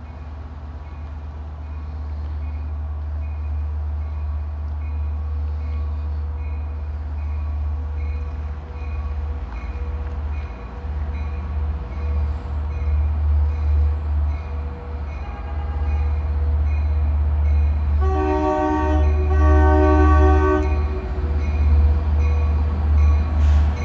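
Grade-crossing bell dinging steadily about twice a second over a low rumble that grows louder as a diesel train approaches. About 18 seconds in, the train's horn sounds two long blasts.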